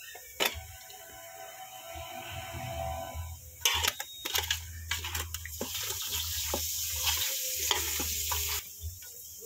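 Raw chicken pieces being mixed by hand with onion, garlic paste, spices and oil in a metal pot: wet squelching and rustling with sharp clicks. The mixing starts about three and a half seconds in and stops suddenly near the end.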